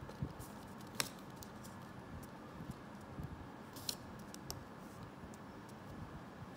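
A few light clicks and taps from fingers handling a small LED board against paper, the sharpest about a second in and two more near the middle, over steady low room noise.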